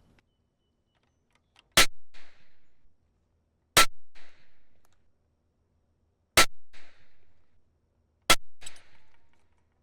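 Restored Colt Model 1908 pocket pistol test-fired: four shots about two seconds apart, each followed by a short fading echo.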